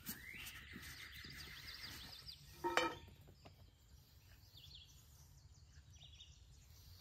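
Quiet outdoor background with birds chirping. A little under three seconds in, a metal spoon clinks once against a small metal tin with a short ring.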